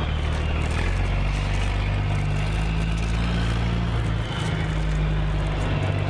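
Electronic truck-engine sound effect from a toy truck's light-and-sound module, a steady low running hum that shifts in pitch about a second in and again around four seconds.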